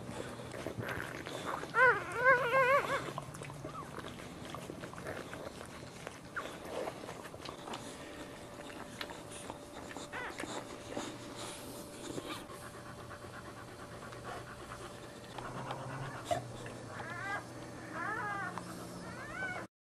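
Newborn Boxer puppies squealing in high, wavering cries, once about two seconds in and again several times near the end, while the Boxer mother pants.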